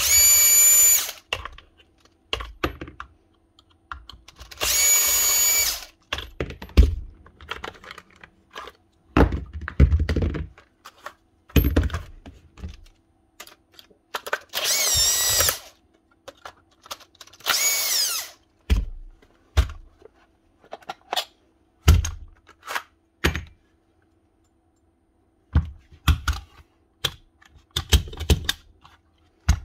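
A power drill-driver runs in four short bursts, backing screws out of a Paslode gas nailer's housing during a teardown. Between the bursts come clicks and knocks of screws and parts being handled.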